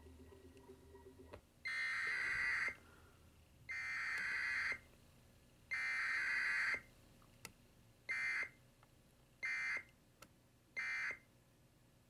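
Emergency Alert System SAME digital data bursts from a small monitor speaker, sending a Required Weekly Test. The header plays three times as bursts of about a second each, a second apart, and then three short end-of-message bursts close the test.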